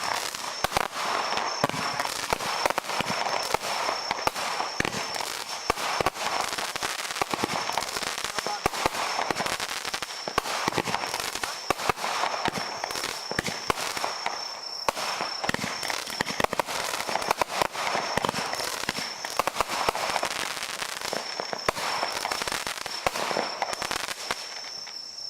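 A firework going off continuously: a dense, unbroken run of sharp crackles and pops, with a thin high steady tone heard through much of it.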